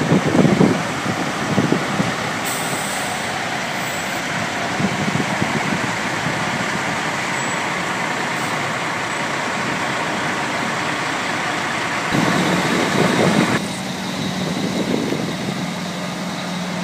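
Heavy diesel prime movers driving slowly past one after another, their engines running. Near the end a steady low engine hum takes over.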